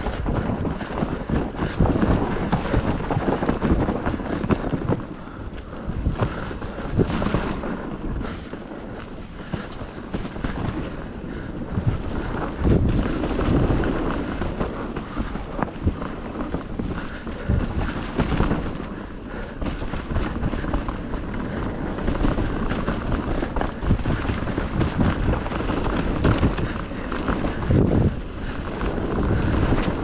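Mountain bike descending a dirt trail at speed: tyres rolling over loose dirt with frequent knocks and rattles from the bike over bumps, and wind buffeting the camera microphone.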